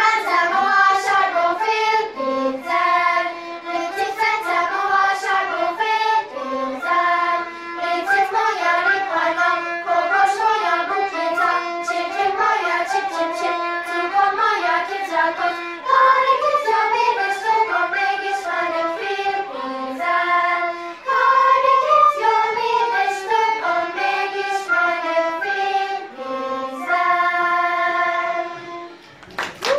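Children's choir singing a song, accompanied by soprano recorders and a violin; the music stops near the end.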